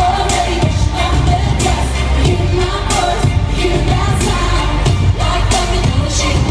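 Loud live pop concert music: a sung lead vocal over a full backing with heavy, steady bass.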